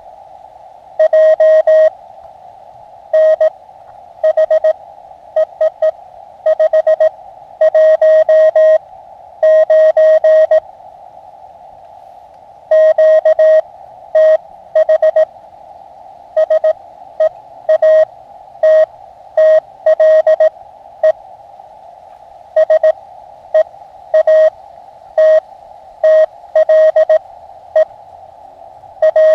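Morse code (CW) from an Elecraft KX2 transceiver: a single steady-pitched tone keyed on and off in dots and dashes, over a constant hiss of band noise heard through the radio's narrow CW filter.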